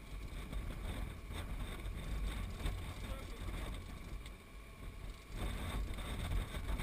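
Steady low rumble and wash of a boat under way at sea, with wind buffeting the microphone.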